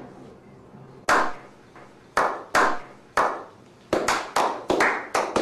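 A slow clap that builds. One person claps singly, about a second apart, and from about four seconds in several others join, so the claps come faster and closer together.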